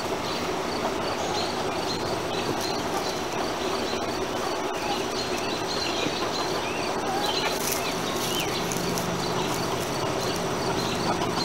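Steady hum of a greenhouse exhaust fan, with a high insect chirp repeating evenly throughout and a few short calls from hens as they peck at scraps in a straw-filled compost ring.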